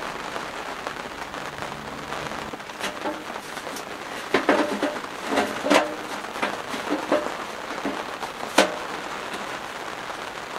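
Sheet-metal clanks and knocks as parts of a small tent wood stove and its stovepipe are fitted together: about nine sharp hits between about three and nine seconds in, the loudest near the end. Steady rain on the canvas tent runs underneath.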